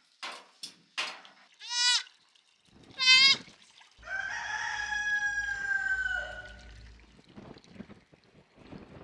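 A few light clicks of a spoon against a metal pan. Then young goats and lambs bleat: two short quavering bleats, followed by a longer call of about two and a half seconds that falls slightly at the end, over low outdoor rumble.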